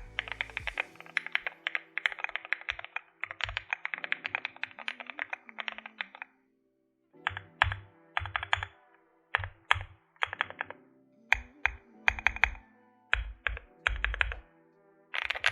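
Custom Akko MOD006 aluminium gasket-mount mechanical keyboard with Akko CS Snow Blue Grey linear switches being typed on fast and continuously for about six seconds. After a brief pause, separate clusters of repeated presses follow on the large stabilized keys in a stabilizer test, each press with a lower thud under the click.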